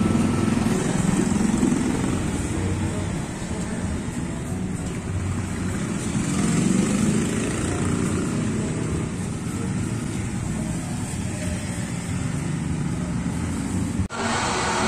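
Steady rumble of motor vehicle engines with street noise, no clear rhythm or change in pitch.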